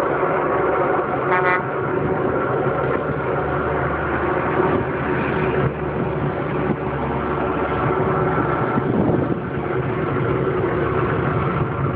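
Steady outdoor road-traffic noise with engines running, and a short car-horn toot about a second and a half in.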